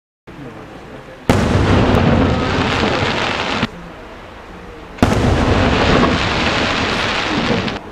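Two aerial firework shells bursting, the first about a second in and the second about five seconds in. Each opens with a sharp bang and is followed by a couple of seconds of loud echoing noise that cuts off suddenly.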